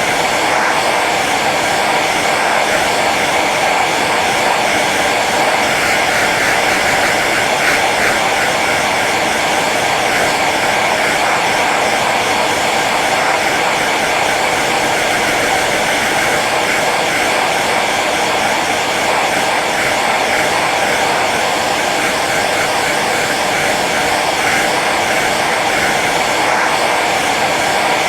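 Hair dryer running steadily on its low setting: a constant airy rush with a steady hum.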